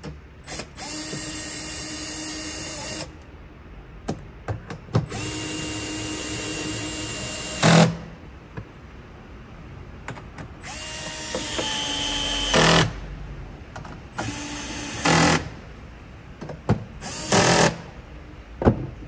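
Cordless drill with a 10 mm socket driving bolts down tight: five short runs of steady motor whine, most ending in a brief loud rattle, with small clicks between runs.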